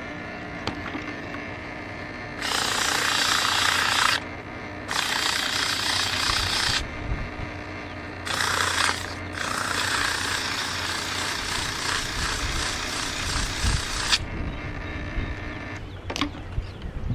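Four bursts of rough scraping as the old electric motor's steel shaft is scoured clean, the last and longest lasting about four and a half seconds, over a steady low hum.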